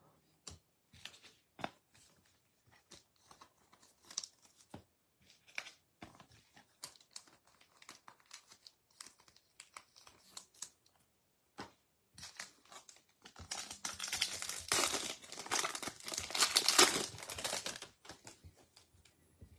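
Scattered light clicks and taps of cards being handled, then, about thirteen seconds in, the wrapper of a 2022 Bowman baseball card pack crinkling and tearing open for several seconds.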